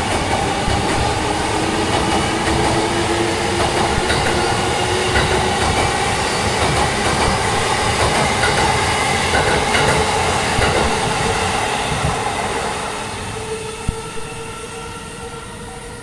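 Electric commuter train passing close by, its wheels clattering over the rail joints; the noise fades over the last few seconds as the train clears. Behind it the level-crossing warning bell keeps ringing, its steady tones standing out as the train noise drops.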